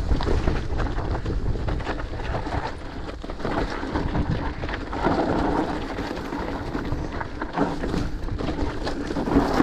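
Mountain bike rolling fast down rocky singletrack: tyres crunching over loose stones and the bike rattling with many small knocks, over a low rumble of wind on the microphone.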